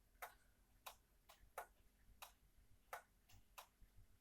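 Faint, steady ticking of a 31-day schoolhouse regulator clock's pendulum movement, a tick-tock of alternating louder and softer clicks, about two to three a second.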